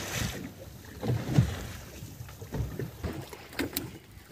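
Wind buffeting the microphone aboard a small boat at sea, heard as an uneven low rumble in gusts, with a couple of sharp clicks near the end.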